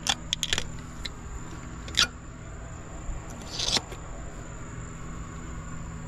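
Hands working a reservoir cap in a car's engine bay: a few sharp clicks and taps, the loudest about two seconds in. A steady high insect drone runs behind them.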